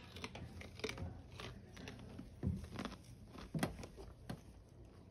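A deer crunching on carrot: a handful of irregular crisp crunches, the loudest near the middle.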